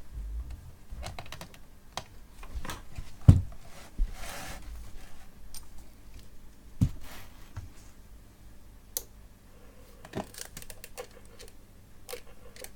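Scattered clicks and knocks of hands working a CB radio and its connectors: plugging in the power lead and operating switches and the microphone. Two sharper knocks come about three seconds and seven seconds in.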